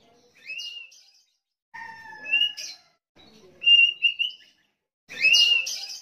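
Sooty-headed bulbul singing: four short whistled phrases, each with quick upward slurs, coming about every second and a half.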